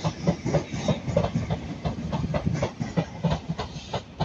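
Wheels of a South Western Railway electric multiple unit clattering over rail joints and pointwork as it moves off, a quick run of sharp clicks, several a second, over a low rumble.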